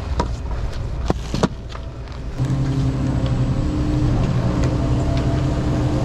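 A few sharp clacks of skis and poles on packed snow. From about two and a half seconds in, the steady mechanical hum of a chairlift running takes over, louder and even.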